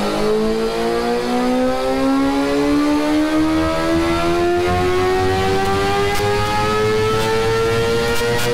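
Sport motorcycle engine running at full throttle on a rolling-road dyno during a power run, its pitch climbing slowly and steadily as the rear wheel spins up the roller, easing off right at the end.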